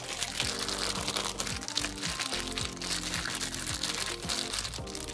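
Plastic zip-top bag crinkling and rustling irregularly as hands squeeze and flip raw chicken leg quarters in marinade, over background music with a steady bass beat.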